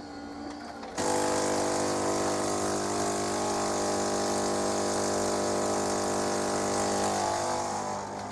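Melitta Caffeo CI coffee machine's vibration pump switching on about a second in and running with a steady mains buzz, with a hiss of water being pushed through the machine for the start-up rinse. The hiss dies away near the end while a softer buzz continues. It is the sign that the machine, which had stuck on 'system start', is pumping and rinsing again.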